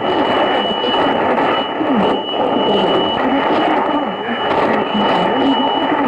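Shortwave receiver's speaker tuned to a weak tropical-band broadcast on 4865 kHz: heavy static hiss, with a faint voice coming and going beneath it. A steady high whistle runs over it, the heterodyne from the neighbouring station on 4862 kHz, and drops out briefly near the end.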